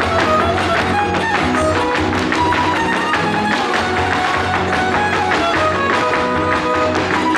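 Huasteco trio playing a huapango: a violin melody over strummed jarana huasteca and huapanguera, with the dancers' zapateado footwork tapping on the stage floor.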